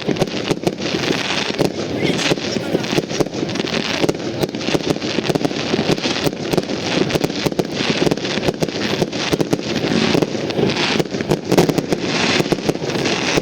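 Fireworks going off: a dense, irregular run of crackling pops and bangs, with people's voices in the background.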